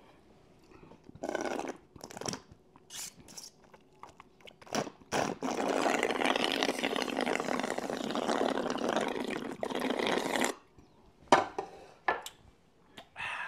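A man slurping up the leftover liquid from his meal in one long continuous slurp of about five seconds, with scattered short mouth smacks and clicks of eating before and after it.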